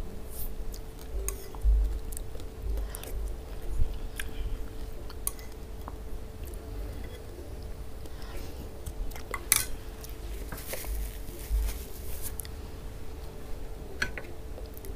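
Close-miked eating: a plastic spoon scraping and clicking against a plate, with soft chewing and mouth sounds. Irregular clicks come thicker in the middle, over a faint steady hum.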